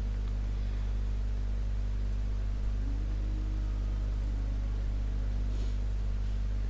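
Steady low electrical hum with hiss, typical of mains hum picked up by the recording, holding unchanged throughout; a faint short scratchy sound comes about five and a half seconds in.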